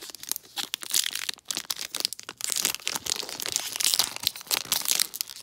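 Foil wrapper of a Pokémon Vivid Voltage booster pack crinkling and crackling as it is handled and torn open by hand.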